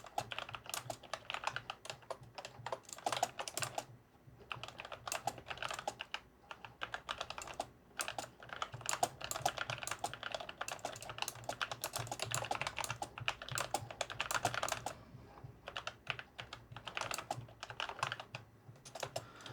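Typing on a Freewrite Alpha keyboard fitted with low-profile Nuphy Air75 keycaps: quick runs of key clicks, broken by brief pauses.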